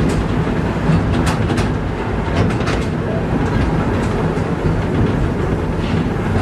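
Lartigue Monorail replica train running on its raised single rail, heard from aboard a carriage: the steady hum of the diesel locomotive and running gear, with irregular clicks and clacks from the wheels on the track.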